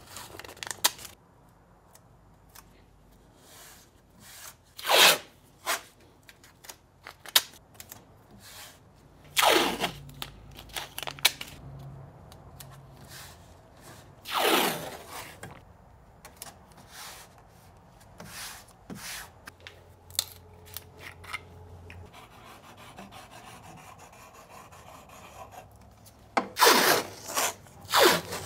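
Blue masking tape being ripped off the roll in several short, loud tears and rubbed down by hand onto a thin titanium sheet, with quieter rustling and rubbing between the tears.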